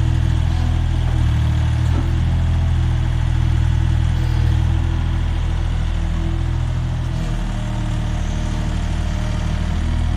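MultiOne SD-series articulated mini loader's engine running steadily as the machine drives and works its bucket. The engine note shifts briefly about seven and a half seconds in.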